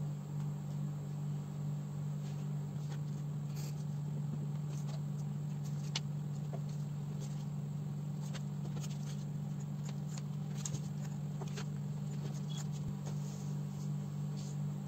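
Sheets of white paper being folded and pressed flat on a table: faint rustles and light taps scattered through, over a steady low hum.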